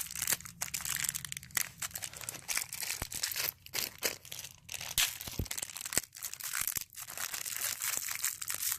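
Plastic wrapping crinkling and tearing as a small toy package is opened by hand, a continuous crackle broken by many short sharp crinkles.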